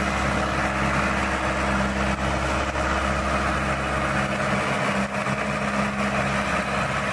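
ACE 450 45 HP tractor's diesel engine running steadily under heavy load while driving a 7-foot Shaktiman rotavator through hard, uncultivated ground in low range of second gear.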